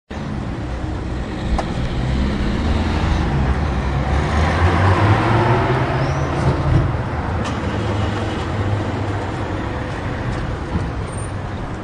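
Car park traffic: a steady low rumble of vehicle engines, with one vehicle passing close in the middle, and a few sharp knocks.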